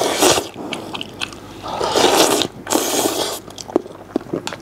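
Close-up eating sounds: loud slurping and chewing of soaked instant douhua paomo taken straight from the bowl, in three main slurps with smaller mouth sounds between.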